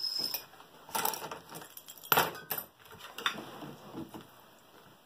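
A metal fork clinking and scraping on an enamelware plate while eating, several short sharp clinks about a second apart, getting fainter near the end.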